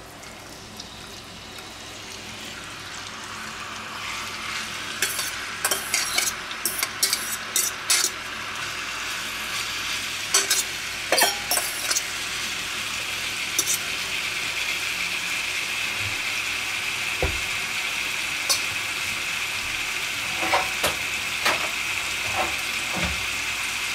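Marinated strips of gyros meat sizzling in hot oil in a frying pan, the sizzle growing louder over the first several seconds as more meat goes in. A metal spoon clinks and scrapes against a stainless steel bowl in a run of sharp clinks midway, with a few more clinks near the end.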